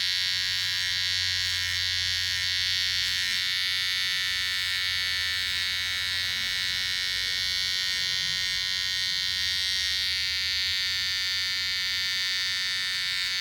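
Gamma+ Absolute Hitter cordless hair trimmer running with a steady high buzz, its blade as it came out of the box, unadjusted, used to cut hair.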